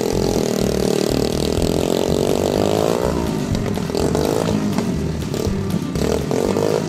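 Mini dirt bike engine running and revving as it rides along the street, its pitch dipping and then climbing over the first few seconds.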